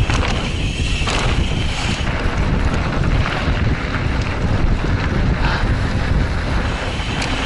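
Wind rushing over the microphone and tyres rolling on dirt as a mountain bike rides down a trail over small jumps, with scattered short knocks and rattles from the bike.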